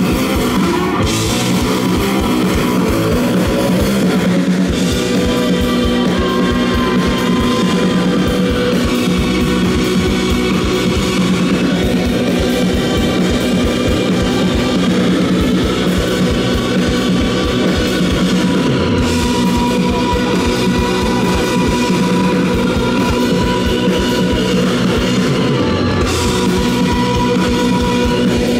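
Live rock band playing loud and without a break: electric guitars over a drum kit, amplified through the stage sound system.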